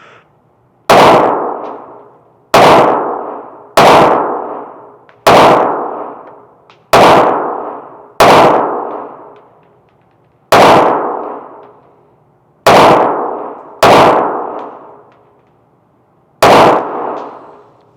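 Ruger Mark IV .22 LR semi-automatic pistol fired ten times in slow, unevenly spaced aimed shots, each sharp crack followed by a fading echo of about a second.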